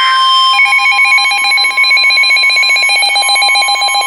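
Weather-alert radio alarm: a steady single-pitch alert tone, joined about half a second in by a loud, fast-pulsing electronic warble stepping between two pitches. It signals an incoming urgent warning, here a tornado warning.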